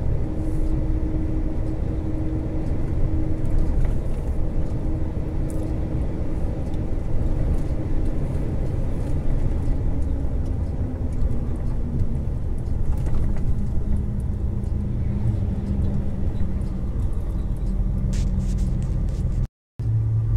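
Diesel semi-truck engine heard from inside the cab while driving, a steady low drone with road rumble; a little past halfway the engine note falls and settles lower as the truck eases off. The sound cuts out for a split second near the end.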